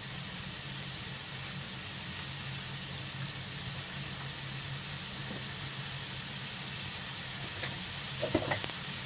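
Asparagus and eryngii mushrooms frying in butter in a frying pan, a steady sizzle with a few sharp crackles about eight seconds in.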